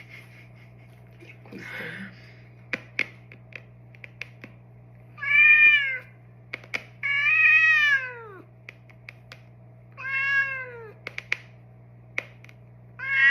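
A domestic cat meowing three times, each meow rising then falling in pitch, with a fourth starting near the end. Between the meows come sharp single clicks, the pretend neck-cracking noises made during the massage.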